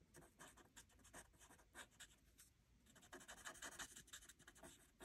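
Faint scratching of an alcohol blending marker's nib stroking over cardstock as the flower centre is coloured in, with a quicker run of strokes about three seconds in.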